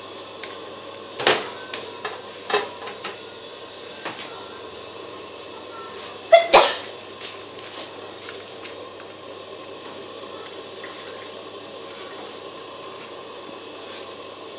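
Several sharp clinks and knocks of a metal ladle against a large aluminium soup pot, scattered over the first eight seconds, the loudest a close pair about six and a half seconds in, over a steady background hiss.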